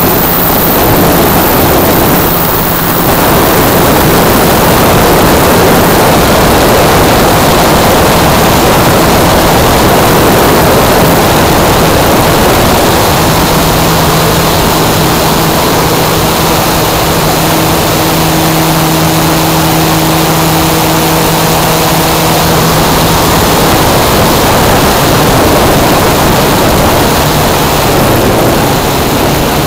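Steady rush of wind over the microphone of a camera mounted on a 2.55 m RC Piper PA-18 in flight, with the steady hum of its electric motor (6S, 2.5 kW) and propeller underneath. The hum comes through more clearly for about ten seconds in the middle.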